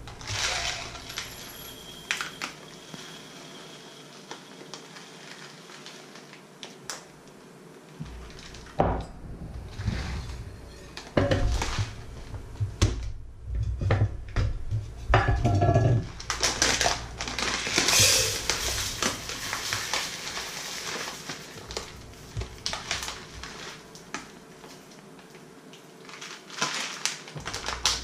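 A plastic bag of small dry pasta crinkling as it is handled, with the pasta rattling as it is poured into a ceramic cup and a bowl, amid clinks and knocks of a glass jar, its lid and dishes on a wooden board. The sounds come in irregular bursts, busiest in the middle.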